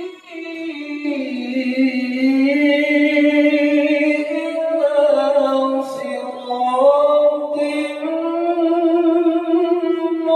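A male qori reciting the Qur'an in the melodic tilawah style into a microphone. He holds long, ornamented notes that slide up and down in pitch, taking a short breath just after the start.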